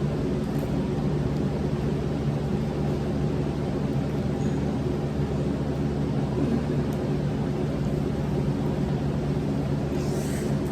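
Steady low mechanical hum with a few held tones, like a motor or appliance running, unchanging throughout.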